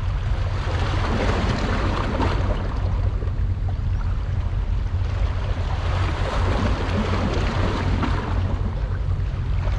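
Wind buffeting the microphone: a steady low rumble under a rushing wash that swells and fades every few seconds.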